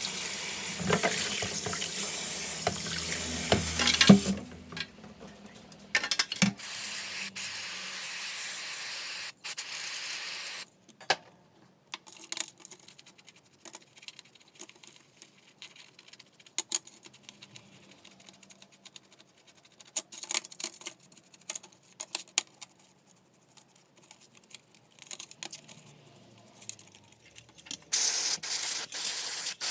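Water running from a tap for about four seconds and then stopping, followed by scattered light clicks and knocks of small parts being handled. A loud hiss starts near the end.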